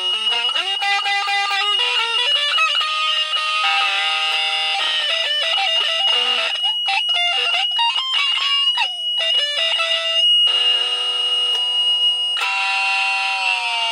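Music: a melody of pitched notes that bend and waver, over a steady high-pitched tone.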